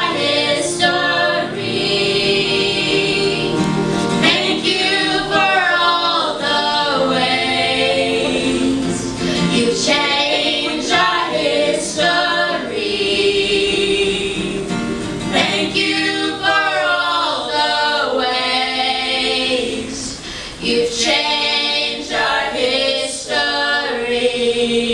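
A group of voices, women's leading, singing a song together in gospel style over steady accompaniment.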